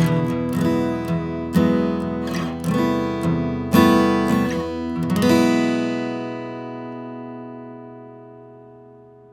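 Martin D-42 steel-string dreadnought acoustic guitar playing a run of plucked notes and chords, then a final chord about five seconds in that rings on and slowly dies away.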